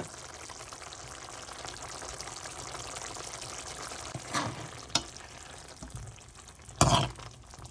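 Pan of small-onion curry sizzling and bubbling on the stove, a steady hiss that fades about halfway through. A couple of light knocks follow, with a louder knock near the end.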